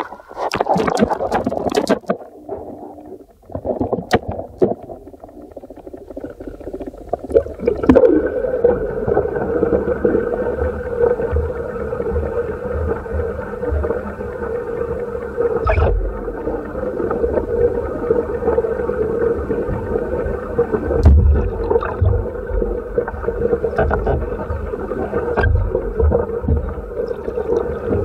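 Muffled underwater sound picked up by a submerged camera. Several sharp knocks come in the first few seconds. Then a steady droning hum sets in, with a few dull low thumps.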